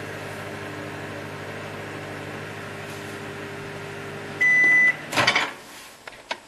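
Microwave oven running with a steady hum as its timer counts down, cutting off about four and a half seconds in with a single half-second beep that signals the end of the cook time. The door is then opened with a clatter, followed by a few clicks.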